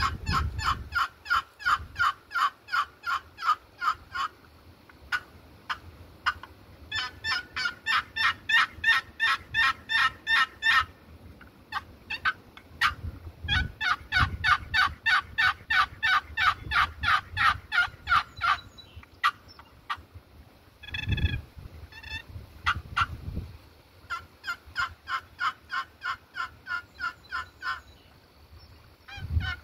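Purpleheart-over-black-limba short box turkey call, its lid scraped across the box in quick series of hen turkey calls, about four notes a second. There are four runs of several seconds each, with a few sharper single notes between them about two-thirds of the way through.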